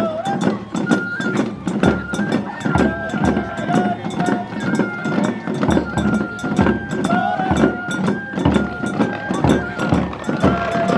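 Festival music: a high melody of held, stepping notes over a steady, even beat.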